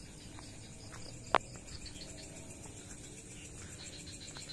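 Night chorus of crickets chirping in a steady rhythmic pulse, with a single sharp click just over a second in.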